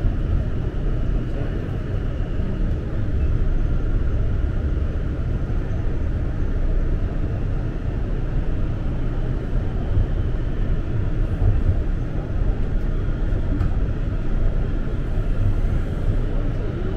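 Toronto TTC subway train in motion, heard from inside the car: a steady low rumble of wheels on rails with a faint steady whine above it.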